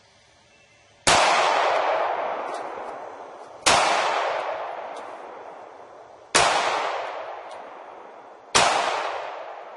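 Sig Sauer MK25 9mm pistol fired four times, about two and a half seconds apart. Each shot is followed by a long echo dying away.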